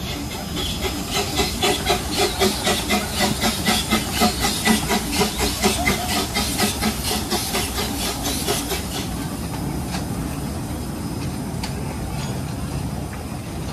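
Miniature steam-style park train locomotive chuffing past in a steady rhythm of about three chuffs a second with a hiss, then a steadier rumble with a couple of clicks as the coaches roll by.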